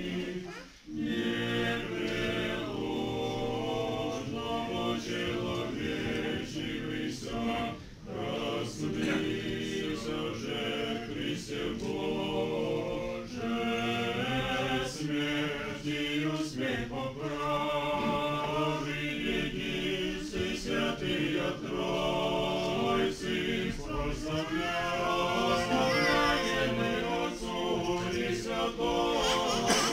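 A cappella church choir singing Orthodox liturgical chant, several voices in harmony without instruments, with short breaks between phrases.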